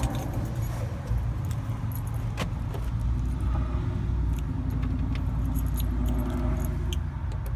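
A bunch of keys jangling and clicking as they are handled, apparently at a door lock, over a steady low rumble.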